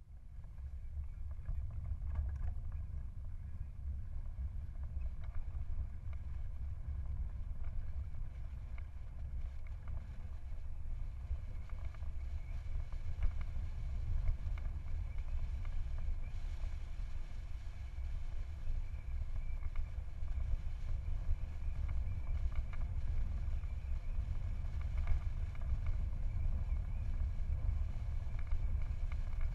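Wind buffeting the microphone of a camera on a moving bicycle, a steady low rumble with road and tyre noise beneath it.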